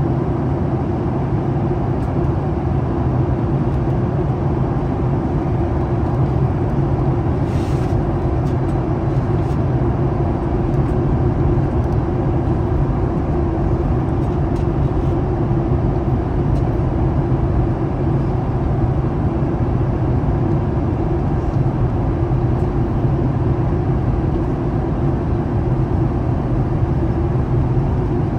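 Steady cabin noise inside a Boeing 737 MAX 8 in flight, its CFM LEAP-1B engines running with a constant low hum under the rush of air along the fuselage.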